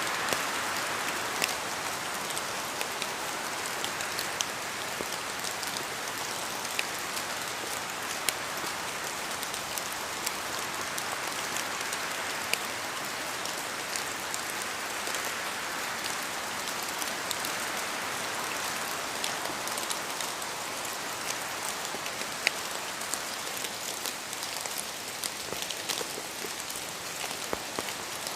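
Steady rain falling on a surface, an even hiss with scattered individual drop taps.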